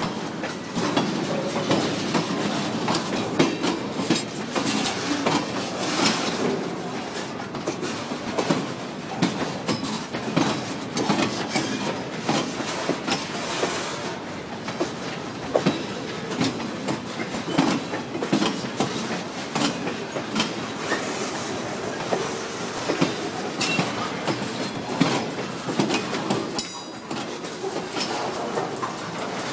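Freight boxcars rolling slowly past, their wheels clicking and clacking irregularly over the rails, with one louder sharp clank near the end.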